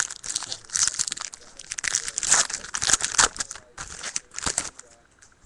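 A hockey card pack's wrapper crinkling and tearing as it is ripped open and pulled off the cards: about five seconds of dense, crackly rustling that stops near the end.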